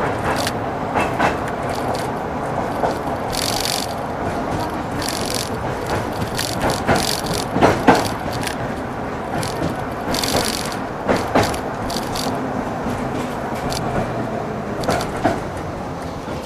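LVS-86K articulated tram running along the track, heard from on board: a steady rumble and rattle of the running gear and body, with the wheels knocking over rail joints in short pairs of clacks.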